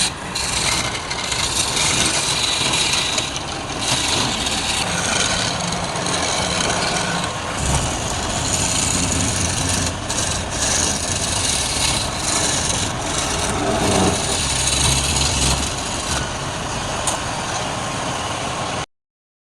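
Wood lathe running while wood on the spinning workpiece is being cut or rubbed, a steady rasping noise over a low motor hum that cuts off abruptly near the end.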